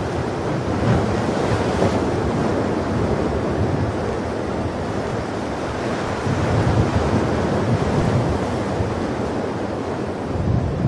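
Ocean surf washing onto a sandy shore in a steady rush, with wind buffeting the microphone.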